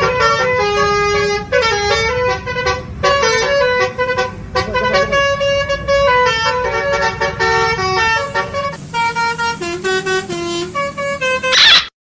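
Telolet Basuri multi-tone bus horn playing a melody of stepped notes over a steady low engine rumble, with a short, louder blast near the end.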